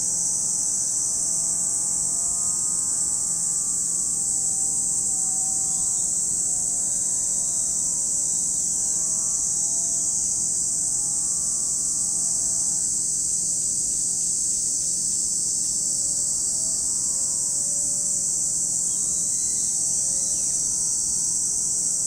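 A chorus of cicadas making a steady, high-pitched, unbroken buzz. Underneath, a faint engine drones, its pitch slowly wavering up and down.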